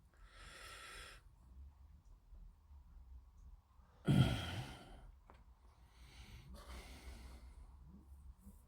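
A person breathing close to the microphone: three breaths out, shortly after the start, about four seconds in and near seven seconds. The middle one is the loudest, a heavy sigh.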